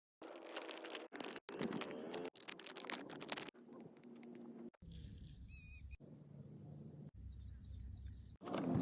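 Faint outdoor background in a string of short, abruptly cut clips, with a bird chirping briefly about halfway through.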